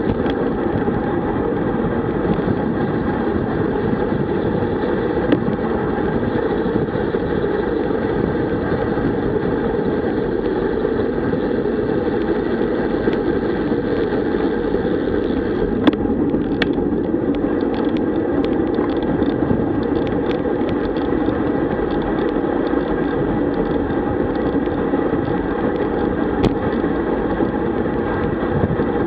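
Steady rush of wind on a bike-mounted camera's microphone, with tyre noise from a road bike riding fast on asphalt. A few sharp clicks stand out, about halfway and near the end.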